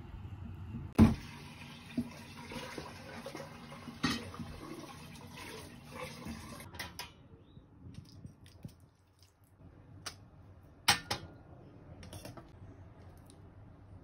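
Tap water running over hand-cut potato chips in a plastic colander, with a couple of knocks against the colander; the water stops about seven seconds in. Then quieter clicks and one sharp metallic clank, as tandoori-marinated lamb chops are laid on a wire rack over a metal baking tray.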